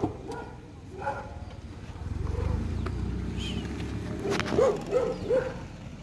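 Maruti Suzuki Baleno pulling away slowly over a dirt ground: a low rumble builds about two seconds in and holds. Three short yelps come near the end.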